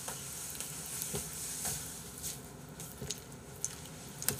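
Metal spoon scooping fried rice in a stainless steel bowl, with a few light clinks and scrapes of spoon on metal spread through.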